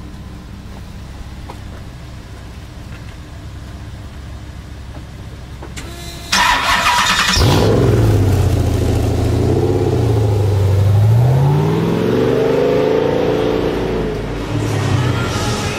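Ultima GTR's V8 cranked by the starter for about a second, catching and settling into idle, with a few small revs rising and falling, then revved higher near the end. A low steady rumble comes before the start.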